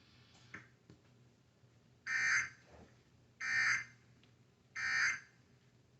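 Three short bursts of EAS end-of-message data tones, the buzzy digital warble of the 'NNNN' code, on NOAA Weather Radio. Each burst lasts about half a second, with about a second between them, and they mark the end of the tornado warning broadcast.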